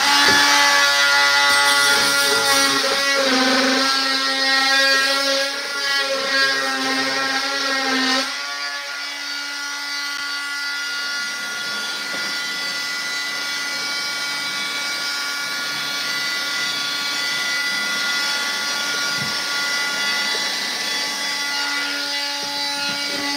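Handheld cordless power tool running continuously at a steady pitch while cutting into hardwood floorboards. It runs louder and rougher for about the first eight seconds, then evenly and a little quieter.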